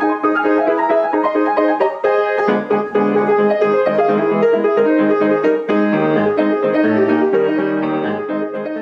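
Intro piano music, a melody of quick notes with lower accompaniment joining about two and a half seconds in, fading out near the end.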